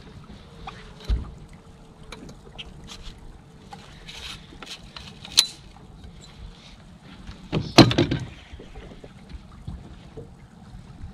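Water lapping against a fibreglass bass boat's hull, with scattered clicks and knocks from the deck and fishing gear and one louder thump about eight seconds in.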